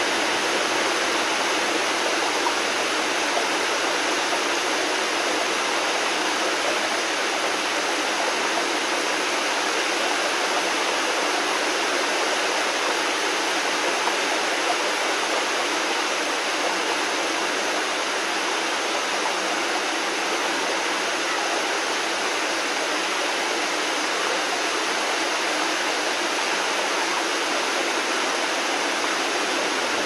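Steady rainfall: an even hiss without breaks or changes.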